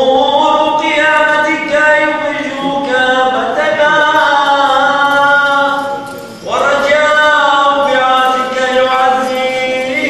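Unaccompanied Syriac Catholic liturgical chant for the Good Friday Burial of the Cross rite, sung in long ornamented phrases with a brief breath pause about six seconds in.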